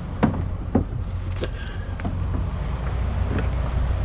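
Diesel truck engine idling with a steady low rumble, with several sharp knocks and clatter from things being handled.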